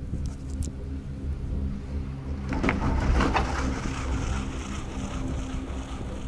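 Steady low hum inside a moving gondola-lift cabin riding its cable. About two and a half seconds in comes a rattling clatter lasting about a second as the cabin's grip runs over the sheaves of a lift tower.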